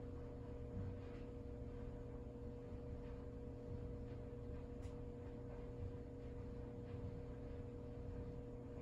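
Quiet room tone with a steady low hum and a few faint ticks.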